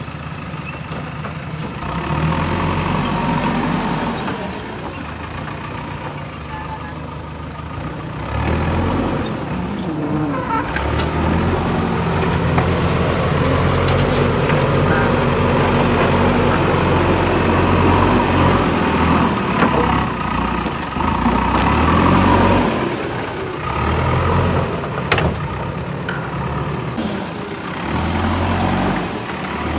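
JCB 3DX backhoe loader's diesel engine running at work, repeatedly rising and falling in pitch and loudness as it takes load. A single sharp knock comes late on.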